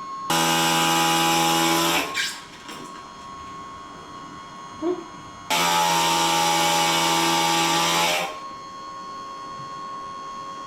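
A power grinder runs in two bursts, about two seconds and then nearly three seconds long, grinding the sharp edges off a freshly cut glass porthole. Between the bursts a steady hum with a faint high tone carries on.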